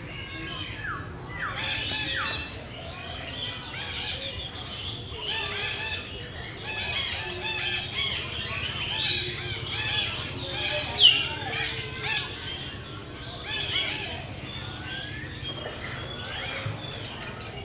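Many birds chirping and calling at once, a dense run of short overlapping chirps and gliding whistles, with one sharp call louder than the rest about eleven seconds in. A low steady hum lies underneath.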